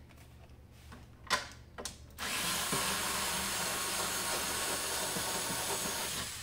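Cordless electric screwdriver running steadily for about four seconds, driving a screw out of the plastic housing of a tourniquet machine. Two short knocks come first, about a second in.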